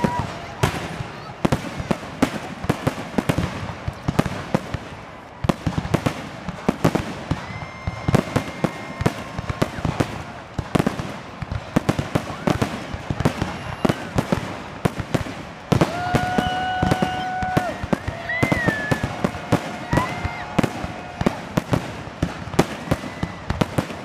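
Fireworks finale heard close up: aerial shells bursting in rapid succession, a dense, continuous barrage of bangs and crackles with no pause.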